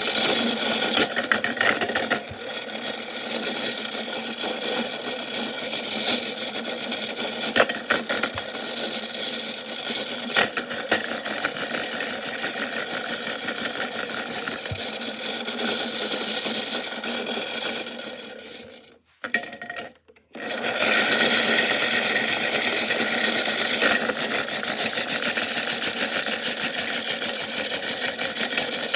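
Washing machine running with a big rock inside, a steady mechanical churn with irregular knocks and clatters. The sound drops out briefly about two-thirds of the way through, then starts again.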